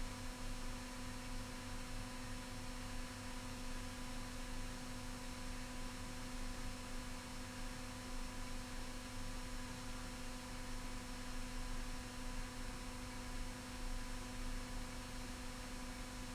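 Steady electrical mains hum, one unchanging tone with its overtones, over a faint hiss.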